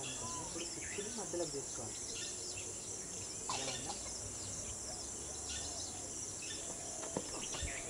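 Outdoor field ambience: a steady high-pitched insect drone throughout, with faint bird chirps and distant voices.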